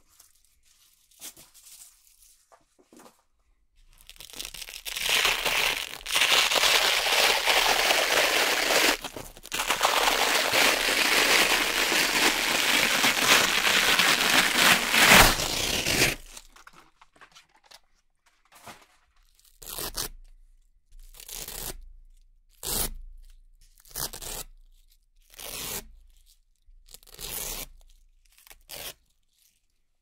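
Velcro strips being peeled apart by hand: a long continuous rip, broken once, for about twelve seconds, then a run of about eight short rips, each under a second, roughly a second or more apart.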